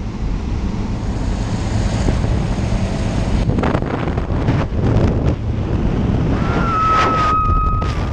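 Loud wind rushing and buffeting the microphone at a skydiving plane's open door and into freefall, a dense steady roar with a few surges. Near the end a steady high tone holds for about a second and a half.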